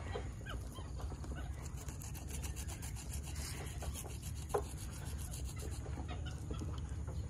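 Close handling noise: a tufted capuchin's hands rubbing and scratching at a person's fingers near the microphone, with rapid fine ticks and a few faint short chirps over a steady low rumble. One sharp brief sound comes about four and a half seconds in.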